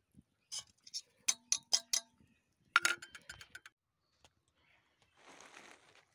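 Steel utensils clinking: a handful of quick metal taps, like a tea strainer knocked against a steel pot, then a single louder clink near three seconds in. A short rustling hiss follows near the end.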